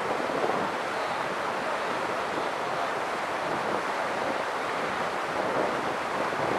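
River swollen by typhoon rain, its floodwater rushing in a steady, unbroken wash of noise.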